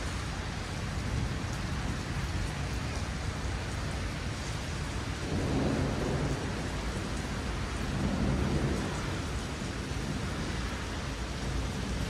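Steady rain falling during a thunderstorm, with two low rolls of thunder, one about five seconds in and another around eight seconds in.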